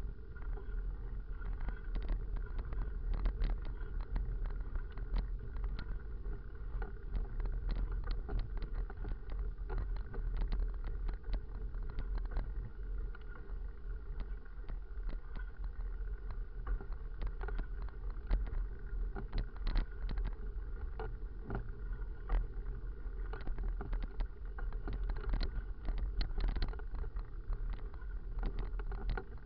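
Full-suspension mountain bike rolling over a rough, broken road surface: a steady low rumble of wind and road noise with many irregular rattles and knocks as the bike and camera jolt over the bumps.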